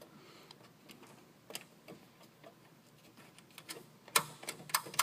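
Small clicks and taps of hex nuts being handled and threaded back onto the mounting studs of a control board bracket. They are scattered at first, then come as a quicker run of clicks from about four seconds in.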